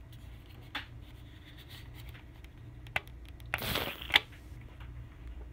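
Light clicks of handling over a low steady hum, with a short hiss a little past halfway through and a sharp click right after it.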